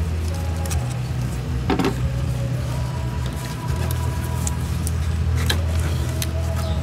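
A steady low mechanical hum, with a couple of short clicks from pliers working the hose clamp and the radiator hose being worked off the filler neck.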